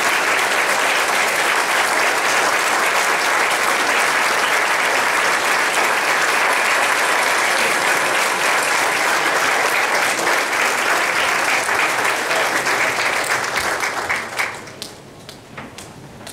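Audience and choir applauding, dense and steady, then dying away about two seconds before the end to a few scattered claps.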